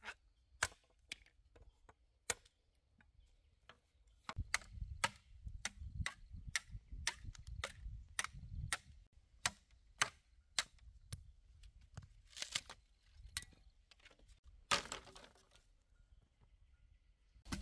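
Blade chopping wood: a long run of sharp strikes, about two a second, ending a couple of seconds before the end with a brief rustle.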